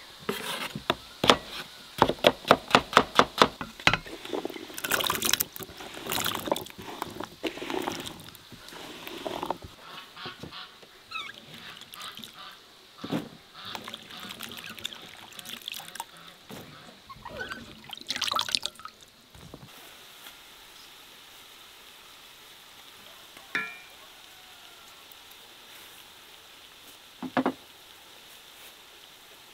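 Kitchen knife chopping raw potato on a wooden cutting board, quick steady knocks at about four or five a second. Then water splashing and sloshing as the diced potato is rinsed and lifted out of a bowl of water by hand, with two single knocks near the end.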